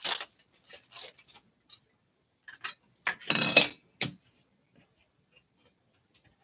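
Plastic magnetic one-touch card holders and cards being handled: scattered clicks and rubs, with a louder stretch of scraping and clacking about three seconds in.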